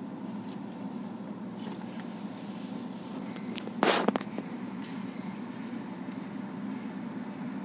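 Steady low hum of a car's cabin in slow traffic, with a brief loud thump about four seconds in.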